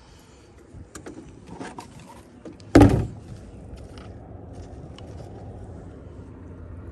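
Gear being handled in a small plastic fishing boat: a few light knocks and rustles, then one loud thump about three seconds in as something knocks against the boat.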